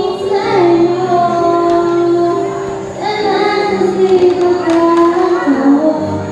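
A woman singing into a microphone, amplified through loudspeakers, with long held notes that slide between pitches, over a backing track.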